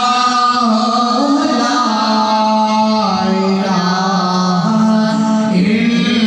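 A man chanting Islamic devotional recitation into a handheld microphone, holding long ornamented notes whose pitch shifts a few times.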